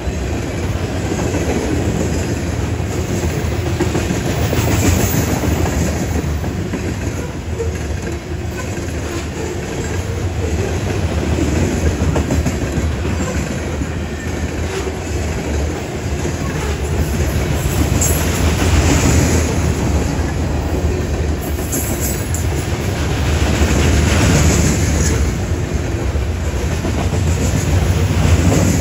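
Covered grain hopper cars of a freight train rolling past close by: a continuous rumble of steel wheels on rail with a clickety-clack from the wheelsets, swelling and easing slightly as the cars go by.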